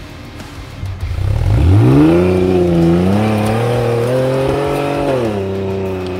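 Off-road 4x4's engine revving hard under load as it powers up a steep muddy climb with wheels spinning. The revs sweep up sharply about a second in, hold high with some wavering, then drop back shortly before the end.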